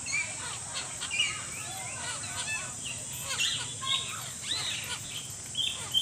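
A flock of small green parakeets calling: many short, overlapping chirps and squawks that rise and fall in pitch, over a steady high hiss.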